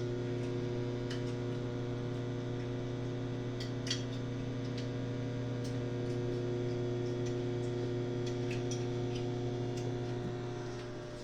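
GE JES1145SH1SS microwave oven running on a heating cycle: a steady electrical hum from the magnetron and fan, with a few faint ticks.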